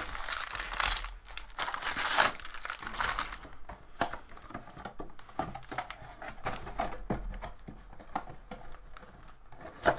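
Foil-wrapped 2021 Topps Series 1 jumbo baseball card packs crinkling as they are pulled out of their cardboard box, densest in the first few seconds. After that come lighter rustles and small clicks as the packs and box are handled.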